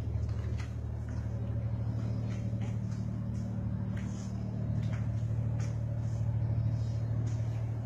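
Steady low drone of a ship's engines and machinery carried through the hull to the bridge, with a few faint clicks scattered through it.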